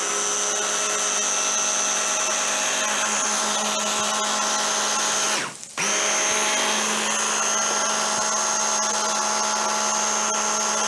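Electric hand blender running on its chopper-bowl attachment, puréeing a thick chickpea and date chocolate paste: a steady motor whine at constant pitch. It stops for a moment about five and a half seconds in and starts again.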